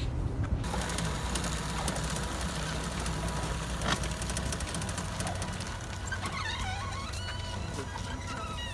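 Small six-wheel-drive robot's electric motors, taken from kids' motor scooters, driving its wheels through bicycle chains: a low steady whir as it rolls over slushy pavement, easing off after about six seconds.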